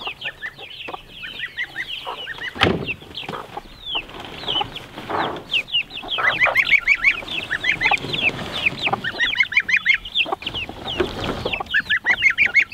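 Chicks and a gosling peeping, with many short, high, falling peeps in quick succession. A single loud thump comes about two and a half seconds in, and bursts of rustling and scraping follow as the pen is moved.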